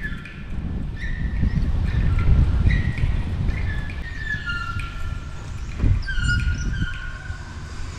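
Wind buffeting the microphone in a low rumble, with a run of high squeaks that each hold a pitch briefly and step up and down.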